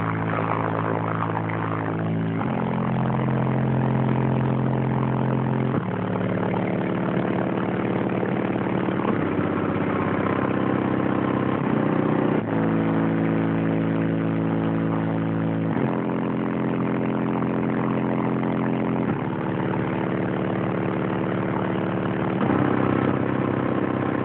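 Bass-heavy music played loud through a car's aftermarket stereo and subwoofers: long held synth chords that change every few seconds.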